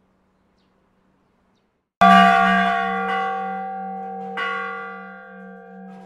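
A very old church bell, rung by hand with a rope, is struck once about two seconds in. It rings on with a long, wavering hum. A second, lighter strike comes a little over two seconds later, and the ringing tails off slowly. It is heard from right beside the bell tower.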